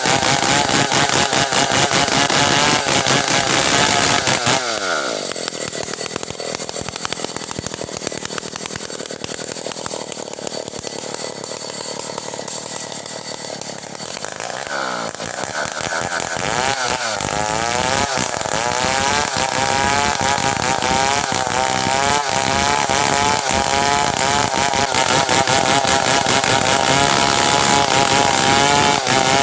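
Stihl 070 two-stroke chainsaw cutting merbau hardwood at full throttle. It drops to idle about four seconds in and idles for roughly ten seconds, then revs back up and runs at full speed again, its pitch wavering under load.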